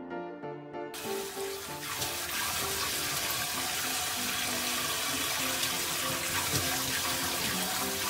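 Soft piano music, then about a second in a kitchen tap starts running steadily into a stainless steel sink as raw chicken pieces are rinsed by hand in a bowl under the stream. The music continues faintly under the water.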